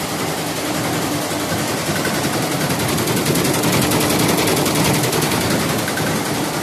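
SWF multi-head embroidery machine stitching at speed: a loud, fast, even clatter of the needle bars.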